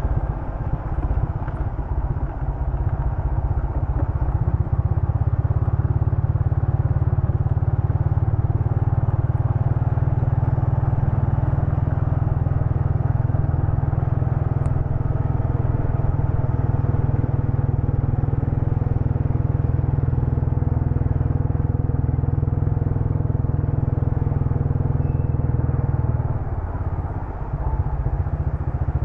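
Motorcycle engine running steadily while riding, easing off briefly near the end before picking up again.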